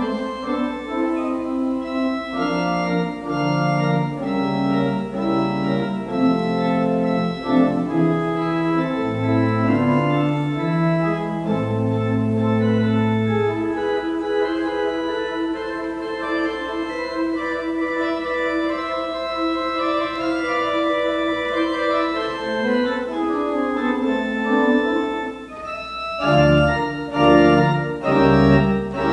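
Church organ playing slow, sustained chords over a moving pedal bass line. The low bass drops out for about twelve seconds mid-way, then returns near the end as the music grows louder and fuller.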